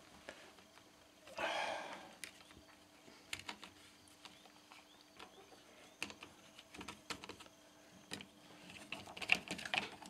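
Faint, scattered clicks and taps of a plastic cord-rewind reel and its power cord being handled, with a brief rustle about a second and a half in.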